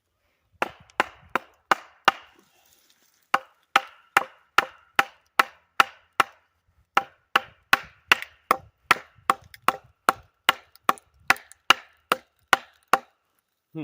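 Mallet striking the back of an axe driven into the end of a beech log to split it, in three runs of steady blows about two or three a second, each blow with a brief metallic ring.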